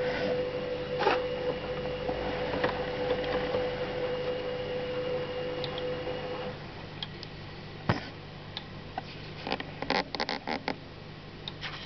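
Saeco Magic espresso machine running with a steady hum as the shot finishes, cutting off about six and a half seconds in. A few light clicks and knocks follow near the end.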